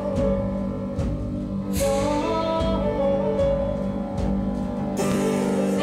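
Instrumental accompaniment of a musical-theatre song: a held low note under a moving melody, with a few soft percussive hits.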